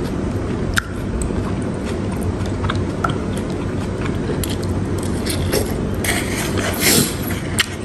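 A metal spoon scooping soup in a disposable bowl, with scattered light clicks and a rougher scraping stretch about six seconds in, over a steady low background hum.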